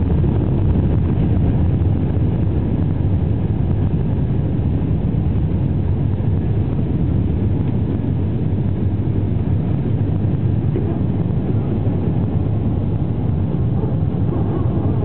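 Jet airliner's engines at takeoff power, heard inside the cabin through the takeoff roll and liftoff: a loud, steady, deep rushing noise.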